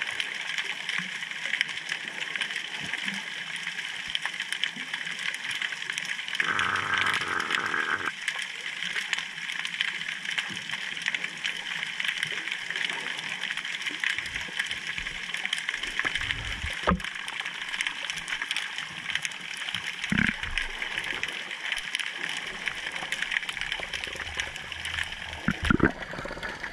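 Underwater ambience picked up through a GoPro's waterproof housing: a steady crackling hiss of fine clicks. A short stretch of low rumbling noise comes about six seconds in, and a few dull thumps come in the second half and just before the end.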